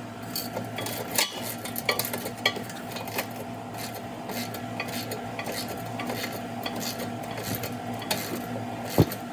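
A long-handled ratchet clicks in irregular bursts as it works a rust-stuck frame bolt back and forth, over a steady low hum. One sharper, louder metal click comes near the end.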